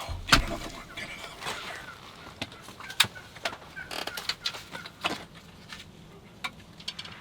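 Wild Merriam's turkeys clucking and putting in alarm after a bow shot, among many short sharp clicks and knocks, with a loud thump about a third of a second in.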